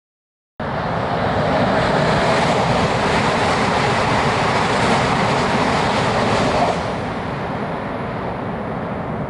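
Train running, a steady loud rushing noise with a low hum underneath. It cuts in suddenly about half a second in and eases a little about seven seconds in.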